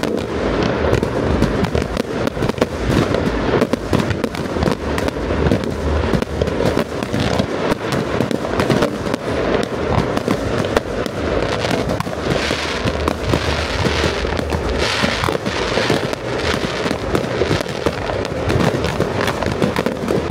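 Fireworks display: a dense, unbroken barrage of aerial shell bursts and bangs, many per second, with a stretch of brighter, hissier crackle in the middle.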